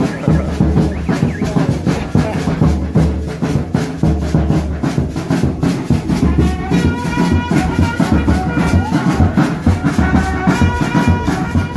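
Upbeat music with a heavy, pulsing bass and drum beat; a higher melody line comes in about halfway through.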